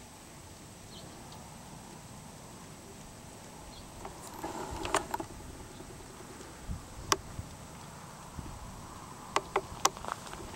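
Footsteps crunching and rustling in dry grass, starting about four seconds in, with a few sharp clicks. Under them is a faint steady background hiss.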